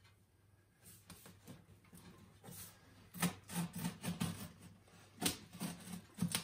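A knife slitting the packing tape along the top of a cardboard box: scratchy cutting and scraping strokes, faint at first, then a quick run of louder strokes and clicks from about halfway through.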